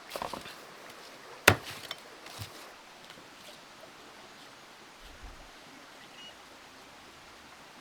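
A few short knocks, with one sharp, loud crack about a second and a half in, then a faint steady hiss.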